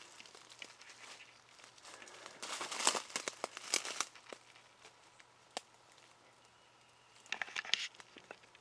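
Dry leaves and brush rustling and crackling, with scattered clicks and two louder bursts of crunching, one about two and a half seconds in and one near the end.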